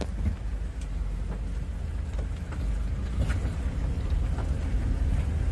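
Steady low rumble of a vehicle travelling along a road, with scattered small knocks and rattles.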